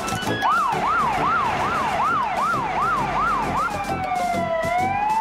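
Fire engine siren going as the engine sets off. It starts with a fast rising-and-falling yelp, about two and a half cycles a second, and about three and a half seconds in it changes to a slower wail that falls, then rises.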